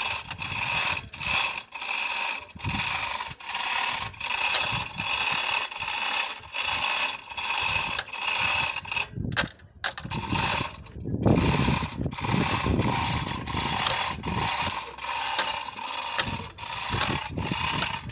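Manual chain block hoisting an engine: the hand chain runs over the pulley and the pawl ratchets in an even rhythmic clatter, about two pulls a second, with a short break about nine seconds in.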